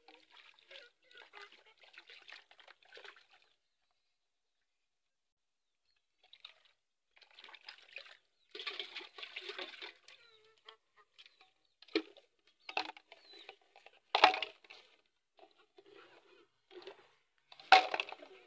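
Plastic cups being washed by hand in a metal basin of water: splashing and sloshing, with sharp knocks as cups and dishes hit the basin and each other. The sound stops for a couple of seconds early on, and the louder knocks come in the second half, the loudest near the end.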